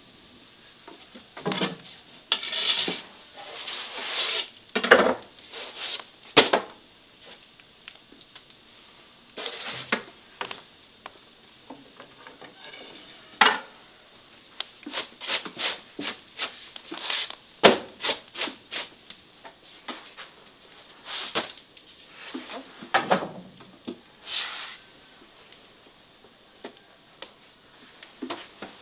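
Irregular rubbing, scraping and sharp knocks of wooden tools and kitchen utensils being handled during bread-making, coming in scattered clusters and dying down in the last few seconds.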